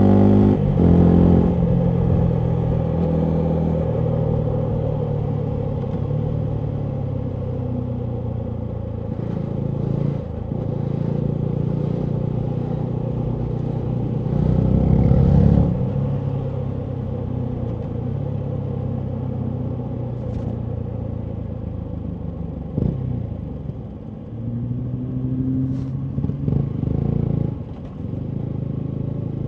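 Yamaha MT125's single-cylinder four-stroke engine through a full Akrapovic exhaust, running under way as the rider works the throttle. It is mostly steady, with a louder burst of acceleration about halfway through. Near the end the revs drop and then climb again, with a couple of short sharp cracks.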